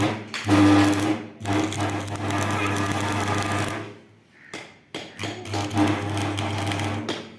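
Electric arc welding on the combine's grain elevator: a steady electrical buzz with crackling, in about three runs of one to two and a half seconds separated by short breaks.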